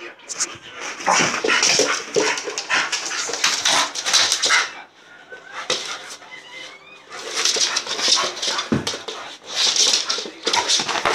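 Young Staffordshire Bull Terrier playing excitedly right at the microphone: rough, noisy bursts of dog sounds with sharp knocks and rustles. They ease off about halfway through, where a few faint rising whines come through, then start up again.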